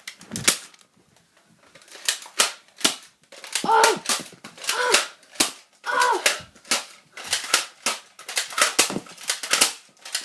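Spring-powered Nerf blaster being primed and fired over and over: a long string of sharp plastic clacks and pops, about two a second. A few short vocal sounds break in near the middle.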